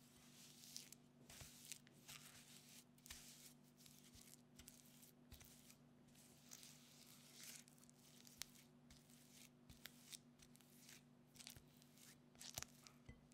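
Red silicone spatula mixing and scraping soft cookie dough of creamed butter, sugar and flour around a glass bowl: quiet, irregular scraping and squishing strokes, with a few sharper clicks near the end.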